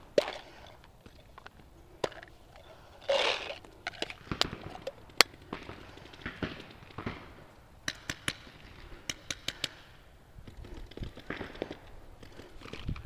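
Paintball markers firing: sharp single pops scattered through, with a quick string of several shots about eight to ten seconds in. A short noisy burst comes about three seconds in.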